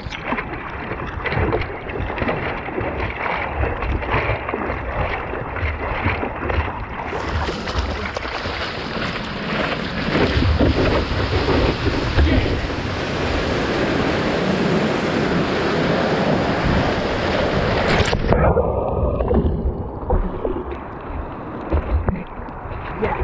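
Seawater rushing and splashing over a surfboard right at the microphone, with wind buffeting it, as the surfer paddles and rides a broken wave. The rush grows louder and fuller about seven seconds in during the ride, then drops off sharply about eighteen seconds in.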